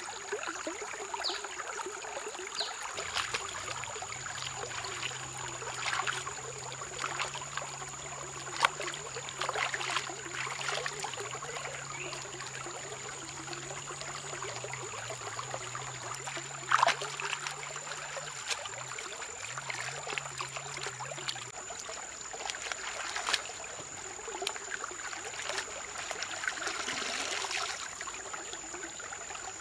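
Shallow stream running over rocks, with splashes and sloshing as hands wash lettuce and handle shrimp in the water, and a couple of sharper knocks. A steady high-pitched tone sits over the water sound.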